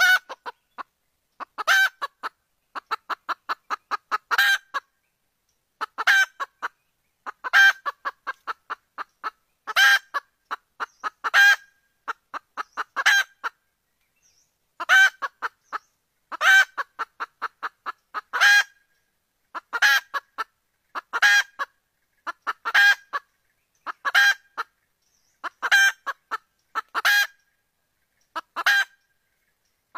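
Junglefowl hen calling: short, loud, harsh calls repeated about every one and a half seconds, with a quick run of clucks a few seconds in. This is the hen's call that junglefowl trappers use to lure cocks, taken for a hen soliciting mating.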